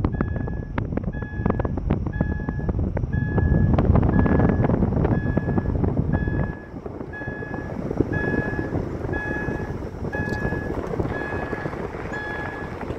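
A car's warning chime beeping steadily, a short tone about every three-quarters of a second, over wind and road noise from a moving car. The rushing noise drops sharply about six and a half seconds in, and the chime then stands out more clearly.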